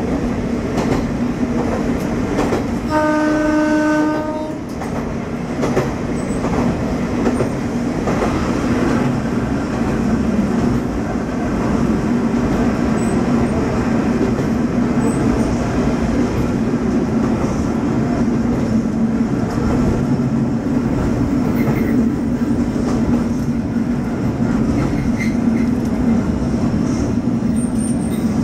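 Kanto Railway Kiha 532 diesel railcar running along the line, its engine droning steadily under the clatter of wheels over rail joints. About three seconds in, its horn sounds once, a single steady tone lasting about a second.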